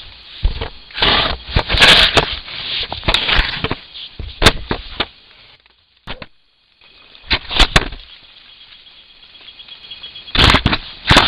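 A wild Asian elephant's trunk and skin rubbing and knocking against a camera trap right at its microphone: loud scrapes and thumps in irregular clusters, broken by a short dead gap about six seconds in and a quieter spell before more rubbing near the end.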